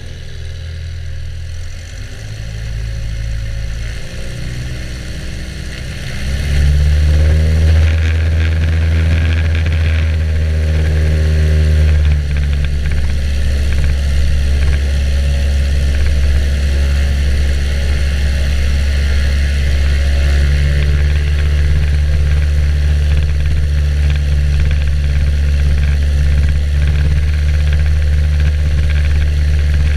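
Aviat Husky's propeller-driven piston engine running on the ground. It comes up in power about six seconds in, then holds a steady, loud drone.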